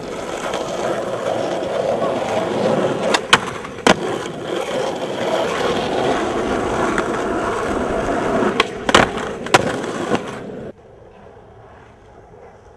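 Skateboard wheels rolling on pavement, with sharp clacks of the board: two about three to four seconds in and a quick run of four around nine to ten seconds. Near the end the rolling sound cuts off abruptly to a quiet background.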